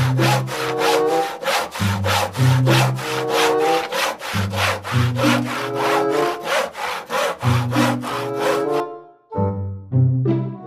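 Hand saw cutting wood in quick, even back-and-forth strokes over background music; the sawing stops about nine seconds in.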